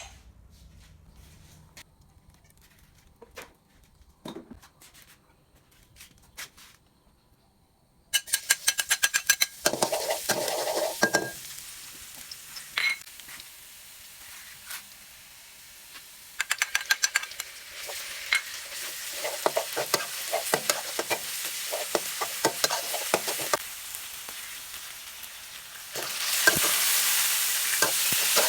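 Seafood stir-frying in a hot pan: oil sizzling hard, with rapid scrapes and clacks of a spatula against the pan. It starts suddenly about a third of the way in, after a quiet stretch of a few small clicks, and the sizzle grows louder near the end.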